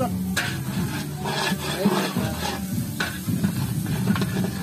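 A ladle stirring and scraping in a large steel cooking pot as onions and ivy gourd pieces fry, in irregular strokes with a light sizzle.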